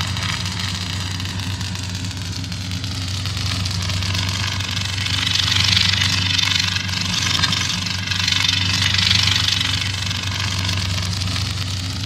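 Kylo Ren's crossguard lightsaber sound effect idling: a steady low hum under a crackling hiss that swells twice around the middle.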